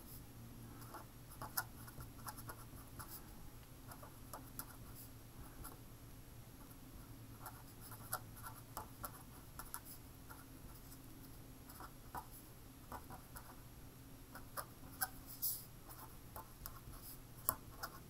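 A pen writing on paper: faint, irregular scratches and small taps as words are handwritten, over a faint steady low hum.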